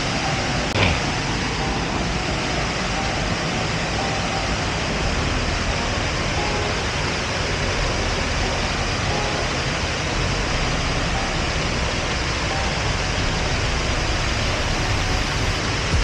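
Steady rushing of a waterfall pouring over rock ledges into a pool, with one short click about a second in.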